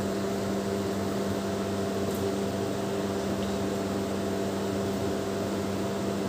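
Steady mechanical hum with a low drone, unbroken and even in level.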